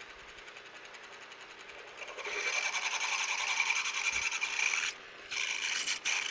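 Mill-drill spindle running while a twist drill bores into a steel block, opening up a bolt hole one drill size larger. The cutting grows clearly louder about two seconds in, drops out briefly near five seconds, then resumes.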